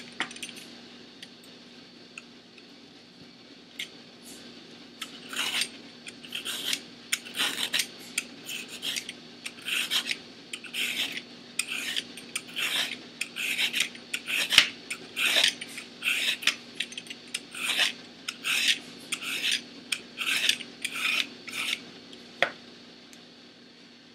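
Vegetable peeler scraping the ridged skin off Chinese okra (angled luffa) in a long run of short, rasping strokes, about one and a half a second, starting about five seconds in.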